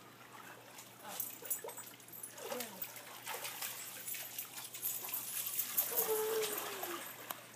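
Water splashing and dripping as a wet Siberian husky climbs out of a swimming pool, followed by a spray of water as the dog shakes off its coat, loudest about six seconds in. A short call falling in pitch is heard near the end.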